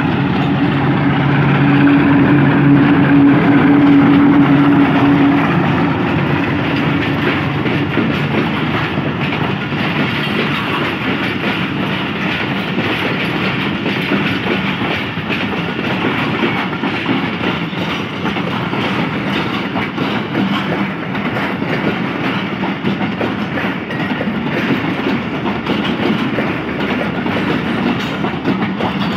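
Diesel locomotive passing under power, its engine loudest in the first five seconds. The rumble of passenger coaches rolling by follows, with the steady clickety-clack of wheels over rail joints.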